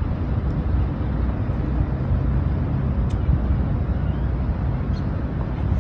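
Steady low rumble of vehicle noise, an even drone with no breaks or changes.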